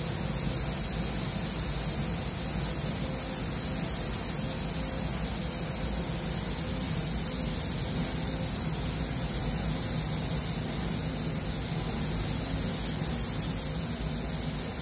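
Steady, even hiss of air in a paint spray booth, with a low hum underneath.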